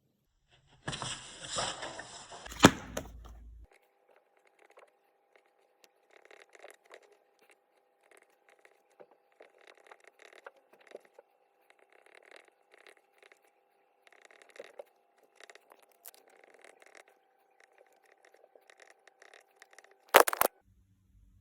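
Faint, intermittent scratching typical of pencil writing on paper, over a faint steady hum. A louder rustle with one sharp knock comes about a second in, and a short loud noise comes near the end.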